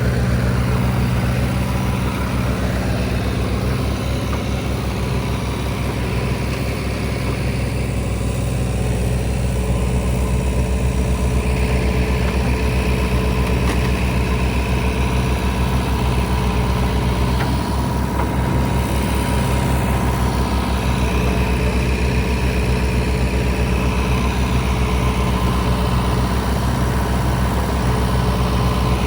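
JCB backhoe loader's diesel engine running steadily, with a fast even pulse and a strong low hum.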